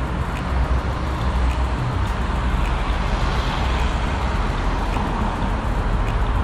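Steady ride noise of an electric-assist bicycle on the road: a continuous low rumble with an even hiss above it and no distinct events.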